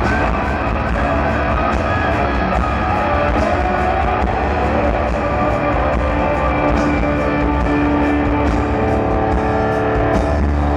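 Live heavy rock played loud: distorted electric guitar with drums, and held notes ringing out in the second half.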